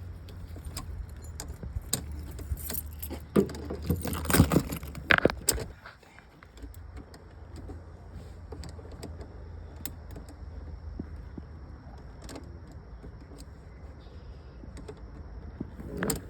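Keys jangling with sharp metallic clicks for a few seconds, loudest about four to five seconds in, over a steady low rumble.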